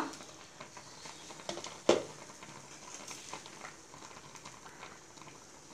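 One sharp clink of cookware a little under two seconds in, with a few light ticks, against the faint bubbling of water simmering in an open pan of boiled yam slices.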